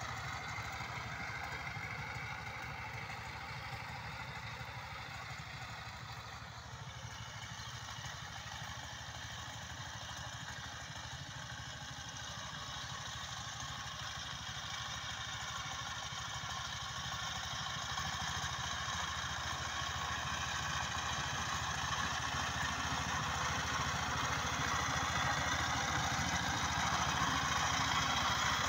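Single-cylinder diesel engine of a 12 hp Sifeng power tiller running steadily as it tills a field, getting louder over the second half as the machine comes closer.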